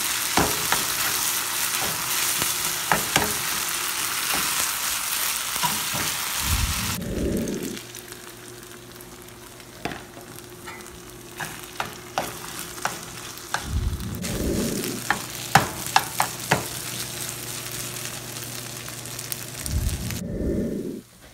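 Fried rice sizzling in a nonstick skillet while a metal spoon stirs it, scraping and clicking against the pan. The sizzle drops away about a third of the way through, leaving a quieter sizzle with sharp spoon clicks and a few dull bumps.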